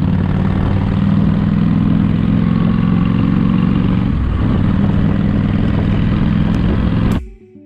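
Honda 1300 V-twin cruiser motorcycle running steadily at cruising speed, its engine note mixed with wind rush past the microphone. It cuts off suddenly near the end.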